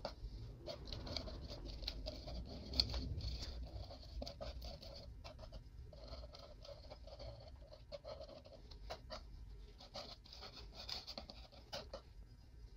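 A spatula spreading contact cement over sheets of sandpaper: faint, irregular scraping with small taps.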